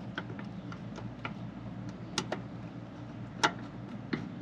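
Irregular light clicks and taps, about a dozen, over a steady low hum; the sharpest click comes about three and a half seconds in.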